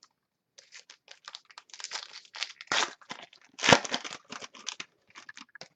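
A foil trading-card pack wrapper being torn open and crinkled, a quick run of irregular crackles with two louder snaps about three and four seconds in.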